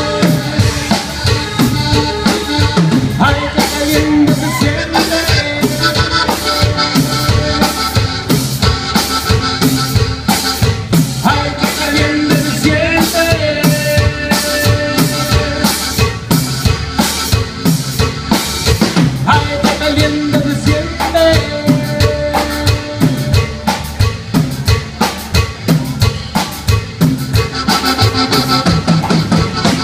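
Live Tejano band playing an instrumental passage of a cumbia with no singing: a drum kit keeps a steady, even beat under electric bass and a held melody line.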